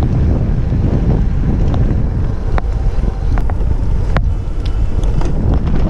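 Wind buffeting the microphone of a handlebar-mounted action camera on a moving bicycle, a steady loud rumble, with a few sharp clicks scattered through it.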